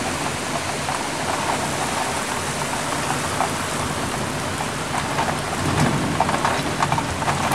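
Heavy thunderstorm downpour: a steady hiss of rain, with close drops ticking more densely in the last two seconds and a low rumble of thunder near the end.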